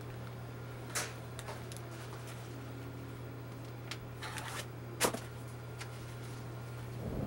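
Steady low room hum with a few light taps and rustles from a plastic piping bag being handled over a cake, the loudest tap about five seconds in.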